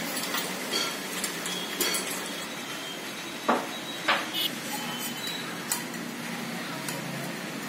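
Light metal clinks and knocks from handling the steel parts of a platform weighing scale: the pillar-mount bolt and the hollow metal pillar tube. Two sharper knocks come about three and a half and four seconds in.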